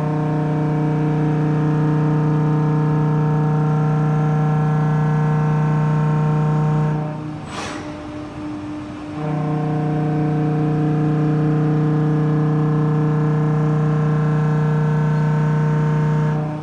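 SW BA 422 CNC horizontal machining centre milling a metal block: two cutting passes of about seven seconds each, each a steady pitched whine. Between them is a short pause with a brief burst of noise.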